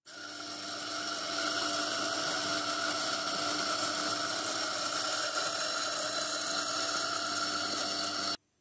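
Electric espresso coffee grinder running while it grinds beans into a portafilter: a steady motor whir with grinding noise. It builds up over the first second and cuts off suddenly near the end.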